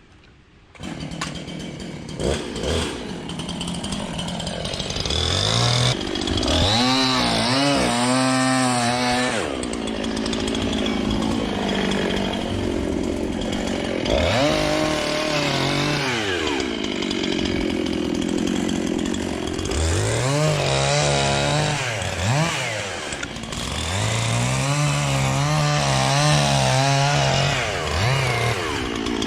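Chainsaw starting up about a second in and running loud, revving up and dropping back several times as it cuts into the oak trunk.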